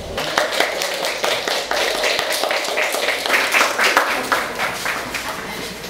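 A small audience clapping: many quick, irregular claps.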